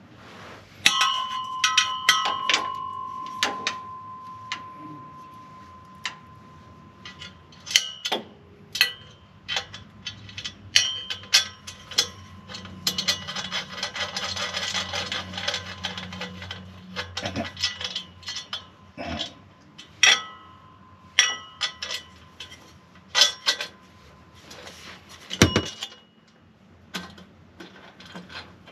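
Metal hand tools and exhaust hardware clinking and scraping while a nut is being fitted, with sharp clinks throughout. A struck metal part rings for several seconds near the start, and there is a stretch of steady scraping around the middle.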